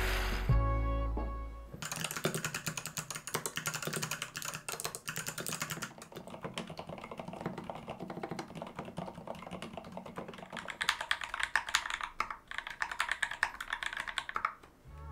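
Fast, continuous typing on a mechanical keyboard: a dense run of sharp key clacks. Background music ends about two seconds in, as the typing starts, and the typing stops just before the end.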